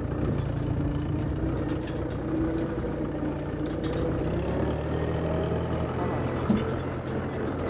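Mahindra farm tractor's diesel engine running steadily under load as it tows a seed drill across a ploughed field, heard from on board with a low, even hum. A single sharp knock comes near the end.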